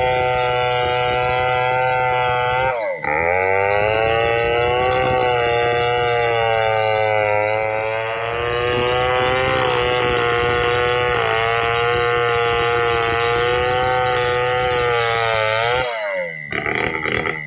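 Petrol chainsaw running at high revs while cutting hard damar laut wood, a steady high engine note. The pitch dips sharply and recovers about three seconds in and again near the end, as the saw bogs under load.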